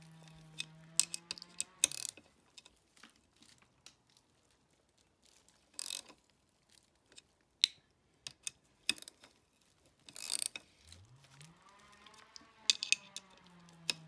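Socket ratchet clicking in several short quick runs as bolts on the clutch cover are run in and tightened. A faint low drone sits underneath at the start and again near the end.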